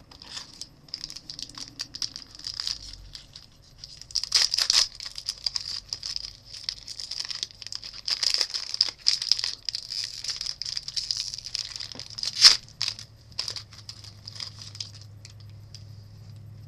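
A foil trading-card pack wrapper being torn open and crinkled by hand, with scattered sharp crackles. One crackle about three-quarters of the way through is louder than the rest.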